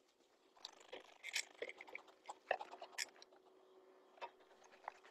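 Scattered light clicks and knocks of beekeeping tools and wooden hive parts being handled at a hive, over a faint steady hum.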